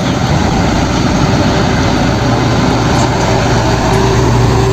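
Heavy truck engine running steadily with a low hum, the engine sound of a cement mixer truck. The hum grows a little stronger near the end.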